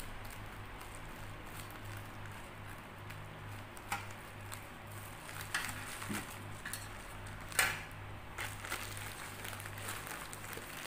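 Plastic courier mailer bag being opened by hand: scattered rustling and crackling of the thin plastic, with a few sharper crackles, the loudest about two-thirds of the way through. A steady low hum runs underneath.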